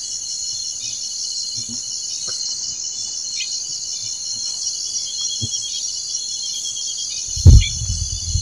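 Night chorus of crickets: a dense, high-pitched pulsing trill that keeps on steadily. A loud low thump comes near the end.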